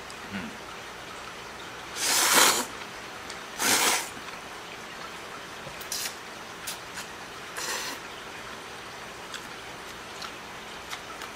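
A person slurping cold ramen noodles: two loud slurps about two and four seconds in, a fainter one near eight seconds, with small clicks of chopsticks and chewing between.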